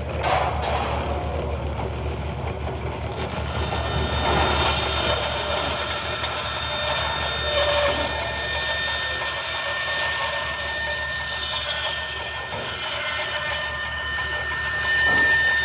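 A woodshop power tool running loudly, with a steady high-pitched whine that comes in about three seconds in and holds.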